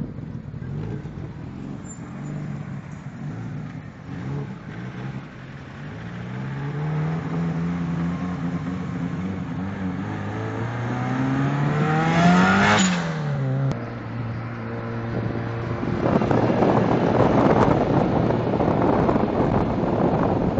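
Subaru Impreza WRX STI (GC8) turbocharged flat-four engine revving. Its pitch climbs twice, the second time higher, then drops off sharply about two-thirds of the way through and settles. A loud rushing noise follows near the end.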